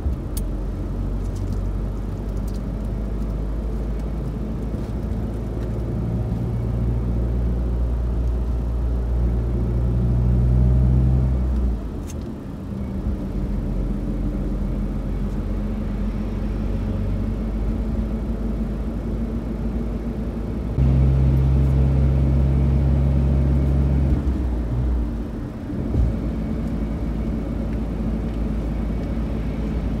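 Car engine and road noise heard from inside the cabin: a steady low drone that grows louder and then drops off sharply, once about twelve seconds in and again near twenty-five seconds.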